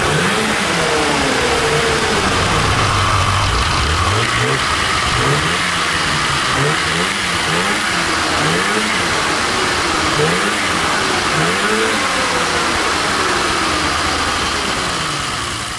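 Polaris Indy 488 fan-cooled two-stroke twin revved in short throttle blips, about once a second, each rising and falling back, with the clutches and drive belt spinning. The track is being run to check its alignment.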